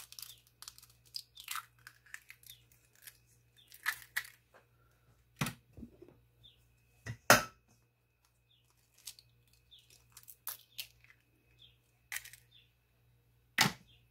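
Eggs cracked by hand into a stainless steel mixing bowl: small crackles of breaking and pulled-apart shell, and a few sharp taps, the loudest about seven seconds in.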